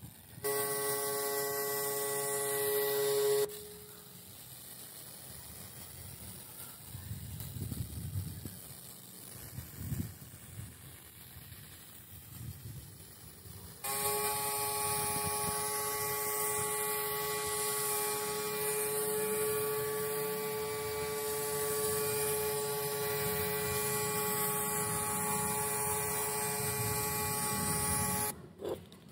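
Pressure washer rinsing cleaning foam off motorcycle parts: a steady motor-and-pump whine with the hiss of the water jet. It runs for about three seconds, stops for about ten, then starts again and runs until shortly before the end.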